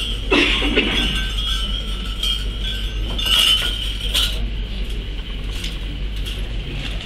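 Light clinks and knocks of glass and small objects handled on a table, a few sharp ones about a third of a second in and again between three and four seconds in, over a steady low electrical hum.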